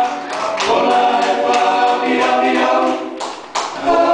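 Men's vocal group singing a cappella in close harmony through handheld microphones, holding chords; the singing dips briefly about three and a half seconds in, then comes back.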